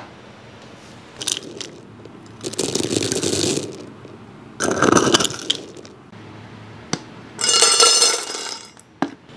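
Dry dog kibble rattling as a plastic scoop digs into a plastic bin of it and the pellets are poured, in three bursts of about a second each, with a few sharp clicks between them.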